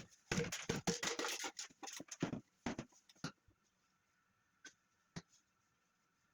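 Kettle parts being handled and worked apart: a burst of scraping and clattering for about two seconds, then a few separate clicks and knocks.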